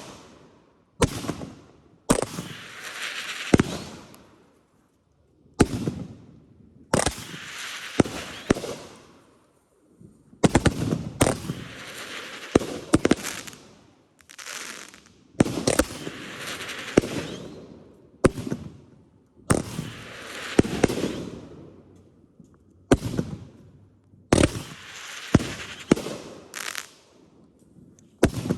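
Consumer aerial fireworks going off in a string of about a dozen sharp bursts, each followed by a second or two of fading crackle.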